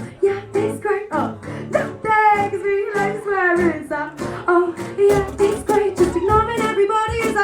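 Singing over a strummed acoustic guitar, in a live performance of a pop song.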